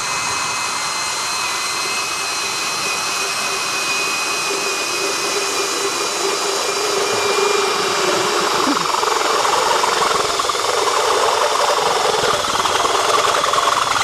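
Cordless drill turning an 18.5 mm RUKO ULTIMATECUT twist drill with FlowStep point through a steel tube wall without a pilot hole: a steady motor whine under continuous cutting noise, which grows louder about eight seconds in.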